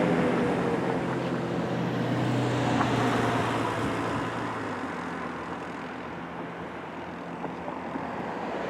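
Federal Signal Thunderbolt 1000AT tornado siren winding down at the end of its test. A low hum and a rush of air fade steadily, and the hum drops away about halfway through, leaving a fainter rush.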